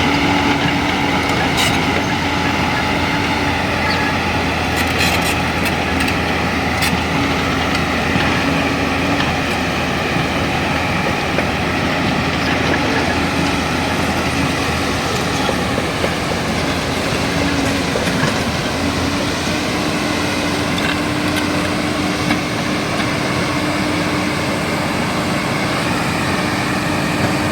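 Hydraulic excavator's diesel engine and hydraulics running steadily under work, a continuous drone with a high whine. The pitch sags briefly about two-thirds of the way through, then recovers. A few sharp clicks or knocks come in the first several seconds.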